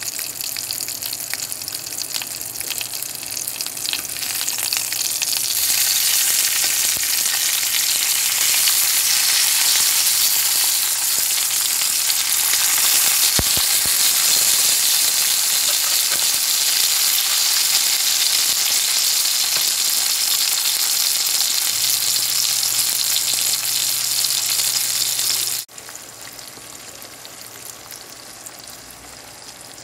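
Meat patties frying in oil in a nonstick frying pan: a steady sizzle that grows louder a few seconds in. Near the end it drops suddenly to the quieter sizzle of eggs frying.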